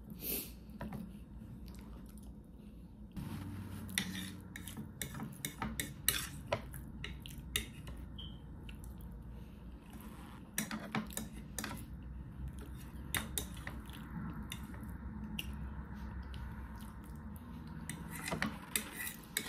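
Metal fork clinking and scraping against a plate as food is cut and picked up, in irregular separate taps that come more often after the first few seconds.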